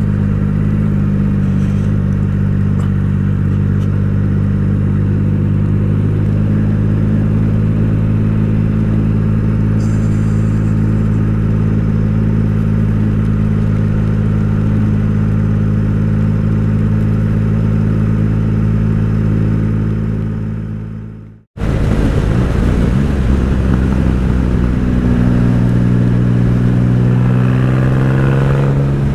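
Motorcycle engine running at a steady cruise. It fades out about three-quarters of the way through, then comes back with its pitch rising as it accelerates.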